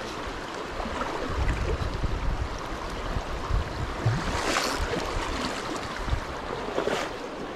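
Shallow mountain freestone creek flowing over rocks, a steady rush of water, with an uneven low rumble and two brief rustles, about halfway through and near the end.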